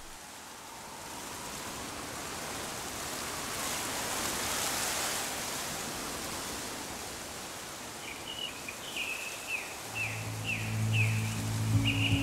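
Soft outdoor nature ambience: an even hiss that swells and fades in the middle, then a bird chirping in quick repeated falling notes from about eight seconds in. Low sustained music notes come in under it near the end.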